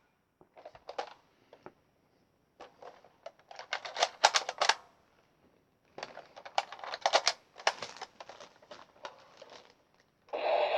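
Plastic clicks and clacks of a toy pump-action shotgun being handled and loaded with shells, in several rapid clusters separated by short pauses.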